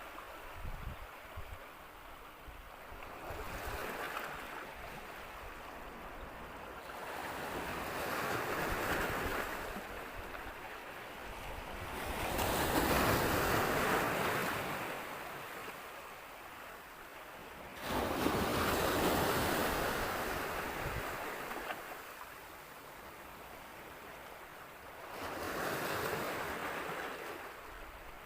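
Sea surf washing onto a beach, the hiss of the waves swelling and fading every five seconds or so, with one wave breaking suddenly about two-thirds of the way through. Wind rumbles on the microphone at the start.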